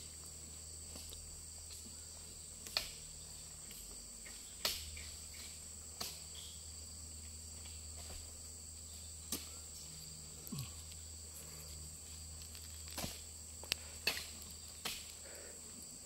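Steady high chirring of insects, broken by short, sharp thuds at irregular intervals, about eight in all, as oil palm fruit bunches are pitched up onto a loaded truck.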